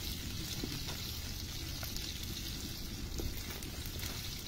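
Onion, garlic and bay leaves frying in oil in a metal pot over a wood fire: a steady, quiet sizzle with a few faint ticks.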